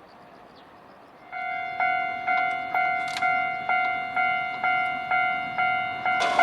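A Japanese railway level-crossing alarm starts about a second in. It rings an electronic 'kan-kan' bell tone, about two strikes a second, after a faint steady background hush.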